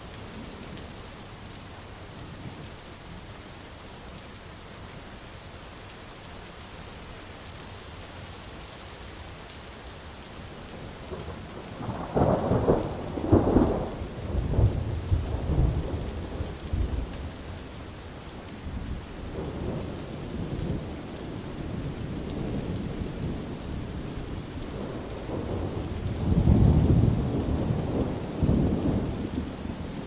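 Rain falling steadily through a thunderstorm, with two loud rolls of thunder: one breaking about twelve seconds in and rumbling on for several seconds, the other near the end, with fainter rumbling between them.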